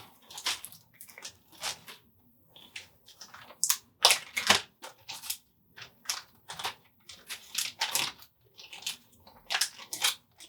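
Packaging being handled and pulled open by hand to get at a small patch: irregular rustling and crinkling in short bursts.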